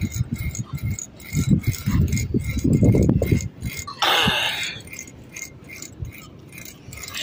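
Close handling noise as a caught fish is held and the hook line worked free of its mouth: irregular low rustling and bumps with small clicks, and a brief brighter rustle about four seconds in.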